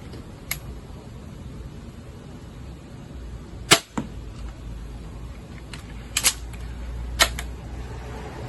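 Adder crossbow shooting a bolt: a sharp snap of the string about three and a half seconds in, followed a quarter second later by a second, fainter impact. Lighter mechanical clicks come before it and twice after it.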